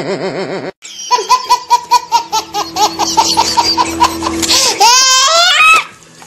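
High-pitched laughter, a quick run of repeated 'ha' sounds about four a second, breaking into sweeping squeals near the end.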